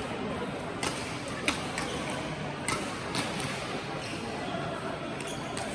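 Badminton rackets striking shuttlecocks on the surrounding courts: about half a dozen sharp, irregularly spaced pings over a steady murmur of voices in a large sports hall.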